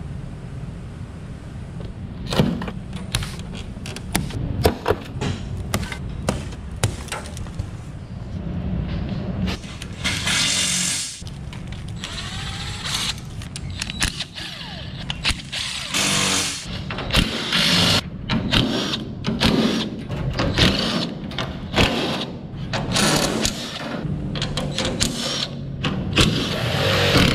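Cordless drill with a socket bit spinning bolts out of a steel shipping crate in short whirring bursts, with clanks and knocks of the metal frame and parts between them.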